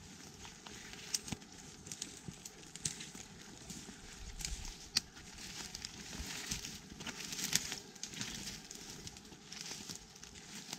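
Dry twigs and leaf litter rustling and crackling as woodland debris is handled and trodden on, with scattered sharp snaps of small sticks.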